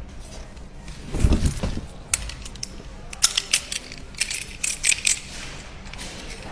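Metal clinks and sharp clicks of a copper-pipe flaring tool and pipe being handled, with a dull thud about a second in followed by a run of quick clicks.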